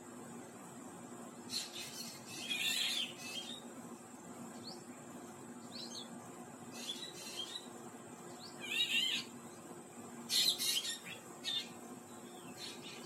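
Bird calls: a series of short, high chirping and rasping calls every second or two, with quick thin upward-sliding notes between them. A steady thin high tone runs underneath.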